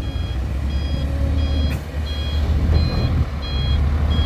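A truck's reversing alarm beeping at an even pace, about every 0.7 seconds, over the low, steady running of a heavy truck engine.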